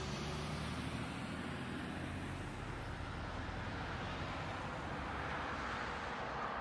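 Steady dashcam engine and road noise from a car driving in traffic, with tyre hiss on a wet road and a city bus running close alongside.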